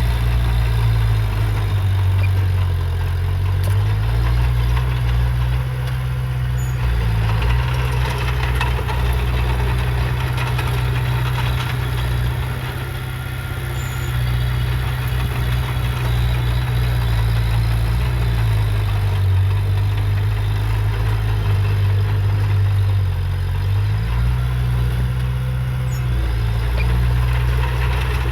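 Heavy diesel engine of earthmoving machinery running under load, its engine speed dropping and picking up again several times as the machine works.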